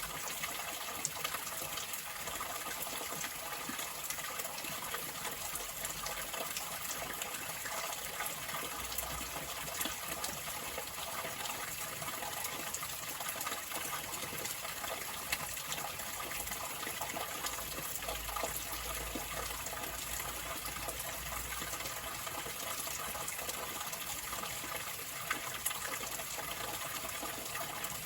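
Flowing water: a steady, even rush of running water with small scattered ticks and splashes, unchanging throughout.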